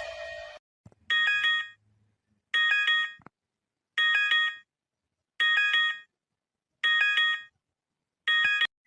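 Electronic emergency alert chime: a short figure of quick beeps on several pitches, repeated six times at about one every one and a half seconds, with silence between repeats.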